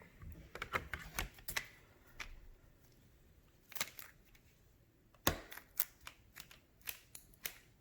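SUPCASE Unicorn Beetle Pro rugged tablet case clicking and snapping as an iPad Air 3 is pressed into its plastic frame: a run of irregular sharp clicks, several of them loud, with quieter handling rustle between.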